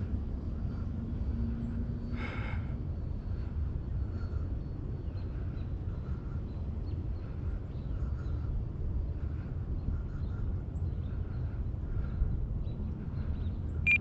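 Gusty wind buffeting the microphone, a steady low rumble, with a short call about two seconds in and a sharp click near the end.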